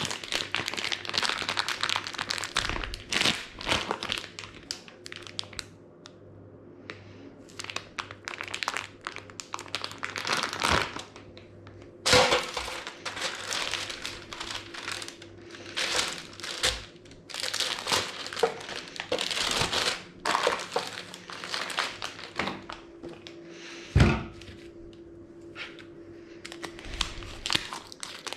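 Kitchen handling sounds: packaging crinkling and rustling in irregular bursts, with a few dull thunks, the loudest about 24 seconds in.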